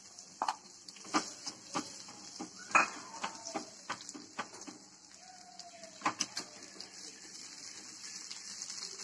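Scattered light knocks and clinks of a wooden spatula and utensils against a kadai as tomato pieces are added and stirred among shallots frying in oil. A faint sizzle grows louder near the end.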